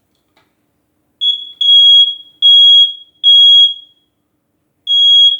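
First Alert smoke alarm sounding under its test button: loud high-pitched beeps in the temporal-three pattern, three half-second beeps, a pause of about a second, then the next group of three beginning near the end. The beeping starts about a second in, just after a faint click.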